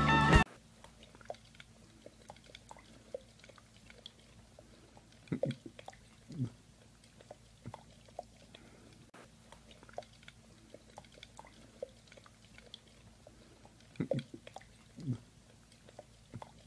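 A husky mouthing a drinking glass: faint wet licking and clicking sounds, with two pairs of louder brief sounds that drop in pitch, about five seconds in and again about fourteen seconds in.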